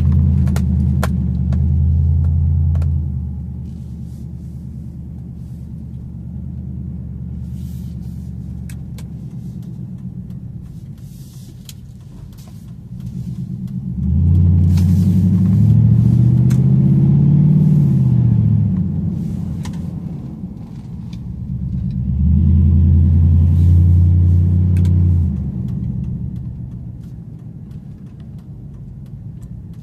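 Pickup truck's engine and exhaust heard from the cab while driving: a low steady drone that swells loud three times under acceleration, once near the start, once around the middle with its pitch climbing and then falling, and once a few seconds later, settling quieter in between. The exhaust has a hole in the tips and a broken hanger.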